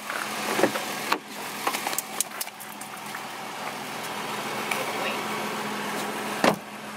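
Toyota Tacoma pickup's engine idling with a steady low hum while it warms up to thaw out. A few light clicks and knocks come in the first couple of seconds, and a loud thump about six and a half seconds in, like a truck door shutting.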